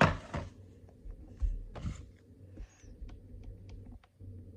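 Handling of a cardboard model-airplane box: a sharp knock as it is set down, two more knocks about one and a half and two seconds in, and light scattered clicks and taps.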